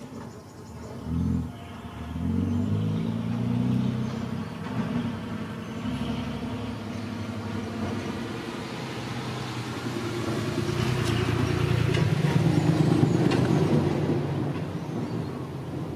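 A motor vehicle engine running, its pitch stepping up and down in the first few seconds, then growing louder past the middle and easing off near the end.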